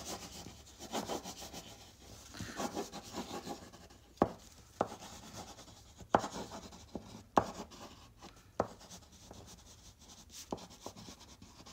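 Thick, chalky Stabilo Woody crayon pencil scribbling across an old book page in quick looping strokes, the waxy lead rubbing and scratching on the paper. Several sharp taps stand out through the middle.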